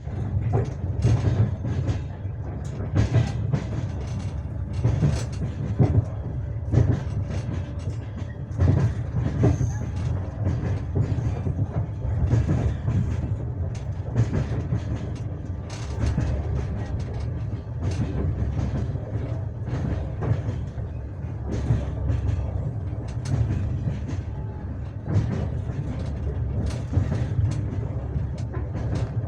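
Passenger train carriage wheels clattering over rail joints, with clicks coming at uneven intervals over a steady low rumble of the running train.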